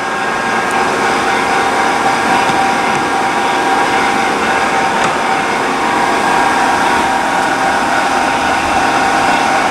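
1979 OOYA RE3-2500 radial arm drill running under power at a slow spindle speed of about 54 RPM: a steady mechanical whine and hum from its gear drive and 10 hp main motor.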